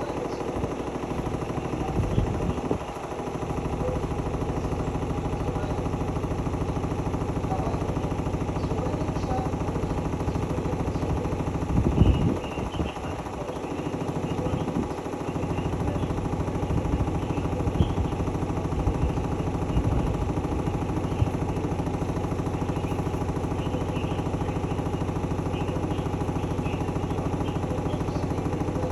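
Hotpoint-Ariston Aqualtis washing machine running with a steady motor hum. There are occasional rough knocks and rattles from the drum, the loudest about twelve seconds in.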